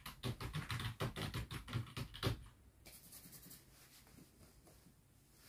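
Typing on a computer keyboard: a quick run of key clicks for about two and a half seconds, then a brief faint scratching of fingers in hair.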